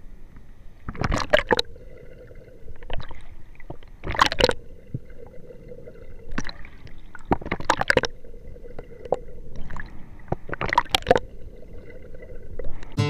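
Muffled water splashing and bubbling in a swimming pool, heard close to a camera at the surface. It comes in bursts about every three seconds as a swimmer repeatedly ducks under, breathes out bubbles through her nose and comes up for air.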